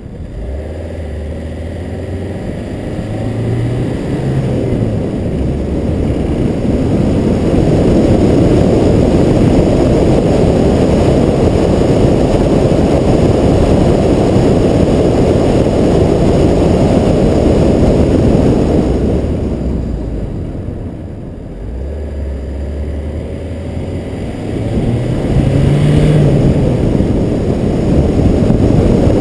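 Car driving up a winding mountain road: a loud, steady low rumble of engine and road noise. The engine note rises briefly a few seconds in and again near the end, and the rumble eases off about two-thirds of the way through before building again.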